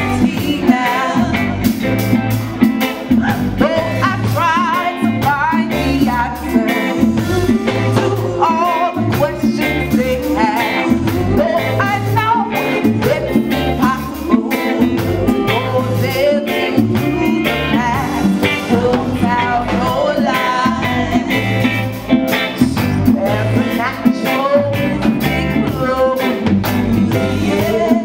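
Reggae band playing, with women singing lead over a steady bass line and guitar.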